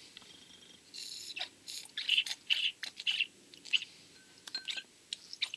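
Short squeaks and squelches from a chainsaw's rubber purge bulb and fuel lines being worked by hand, several a second, with a brief thin whistle about three-quarters of the way through, just after the lines were swapped to the correct ports.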